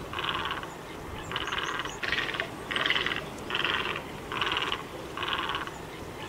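Great white egret (great egret) calling: a harsh, rasping croak repeated about seven times, each call about half a second long.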